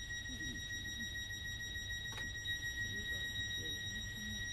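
Interior of a Class 321 electric multiple unit: a low running rumble with a steady, high-pitched whine held at one pitch over it.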